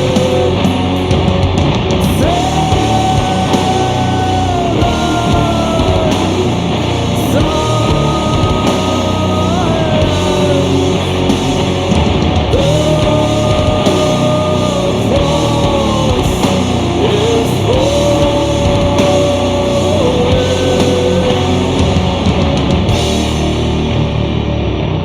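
Sludge/doom metal recording playing: heavily distorted guitars and drums under long held melodic lines that bend at their ends, with a slow, swampy southern feel.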